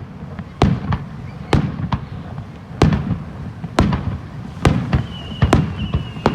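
Fireworks shells bursting overhead in a steady barrage of sharp bangs, about one a second, over a low rumble. A high steady whistling tone comes in near the end.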